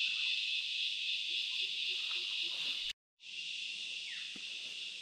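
Steady high-pitched chorus of forest insects, broken by a moment of silence about three seconds in.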